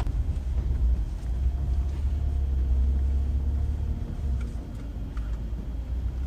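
Steady low rumble of engine and tyres heard inside a Volkswagen Amarok pickup driving on a bumpy rural road, with a few faint clicks.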